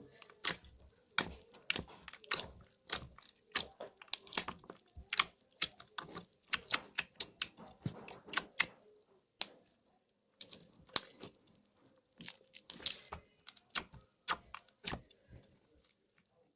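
Slime being squeezed and poked, making a run of sharp, irregular clicking pops a few times a second, with a brief pause partway through.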